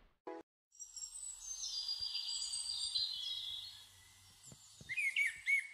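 A short click near the start, then birds chirping and trilling in high, dense song. The song drops away about four seconds in and comes back as quicker, looping chirps.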